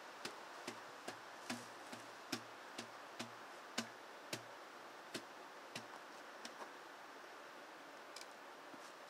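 A series of light, sharp taps, about two a second, slowing and stopping about two-thirds of the way through: a hand striking a potato down into the muzzle of a homemade potato cannon while loading it.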